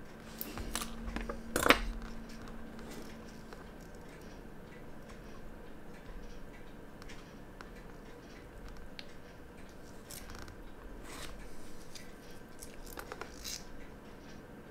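Small metallic clicks and taps from fitting hands onto a quartz watch movement with a hand-pressing tool, with one sharp click about a second and a half in and scattered lighter clicks and scrapes later.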